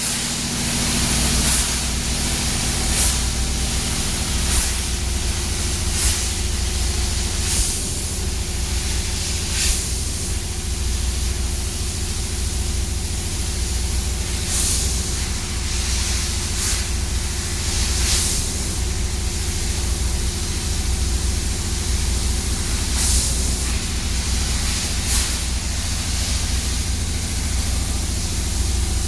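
CNC laser cutter working 2 mm stainless steel: a steady hiss with a low machine hum, and short, louder hisses every few seconds.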